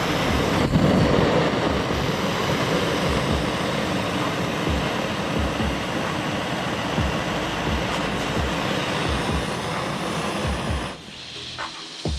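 Heavy machinery running: a loud, steady rumble with irregular low thumps. It drops off suddenly about eleven seconds in.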